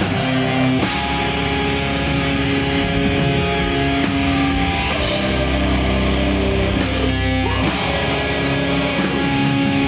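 Heavy metallic hardcore band playing live: loud distorted electric guitars holding chords over bass and drums, with repeated cymbal crashes.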